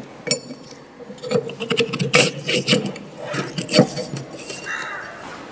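Steel shaft and bracket of a paper roller being handled and slid into place: an irregular run of light metal clicks, clinks and scrapes.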